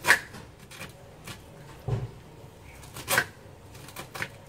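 Kitchen knife shaving kernels off a fresh ear of corn: about six sharp, crisp cutting strokes, the loudest just after the start and about three seconds in.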